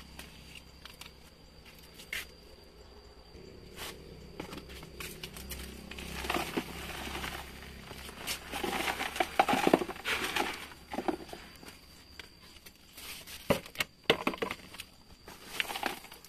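Soil being tipped from a plastic bucket into a large planter pot, falling in a few rushes, with scattered knocks and clicks as the bucket is handled.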